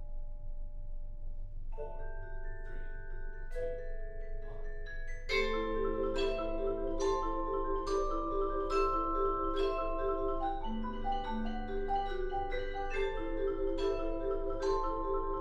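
A quartet of two vibraphones and two marimbas playing mallet music: held ringing tones at first, a few struck notes entering about two seconds in, then the full ensemble coming in about five seconds in with a busy repeating pattern of struck notes over a low bass line.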